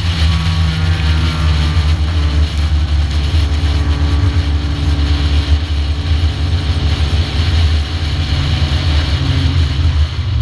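Stock car's engine running steadily at racing speed, heard from a camera mounted on the car, with a constant rushing noise over it.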